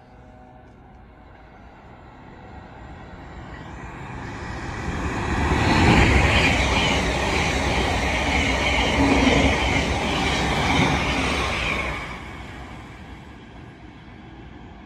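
Thameslink Class 700 electric multiple unit passing along the platform line: the rush of wheels and motors builds over a few seconds, stays loud for about six seconds, then fades.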